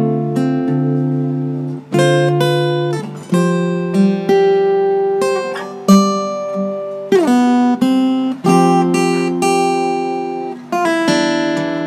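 Acoustic guitar playing slow chords, each strummed and left to ring before the next, with a couple of sliding chord changes.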